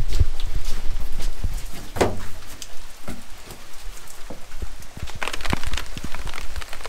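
Rain falling, its drops tapping irregularly on the surroundings and on a cardboard box held overhead; the tapping gets denser and closer about five seconds in. A short sound falling in pitch stands out about two seconds in.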